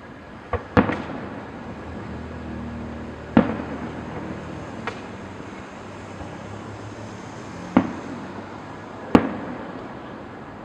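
Fireworks shells bursting overhead: about six sharp bangs at uneven intervals, some with a short echoing tail. The loudest come about a second in, a third of the way through and near the end.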